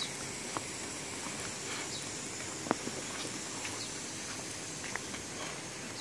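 Steady outdoor background hiss with a few scattered light taps, the sharpest about halfway through.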